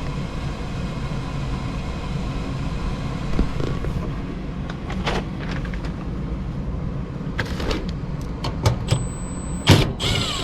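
Gas furnace blower running with a steady low hum. A few knocks and clicks sound over it, with a short high-pitched tone near the end.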